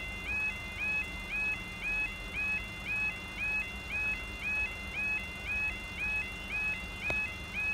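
Level crossing yodel alarm sounding: a high warbling two-tone wail, each rising note repeating about twice a second, with a single click near the end.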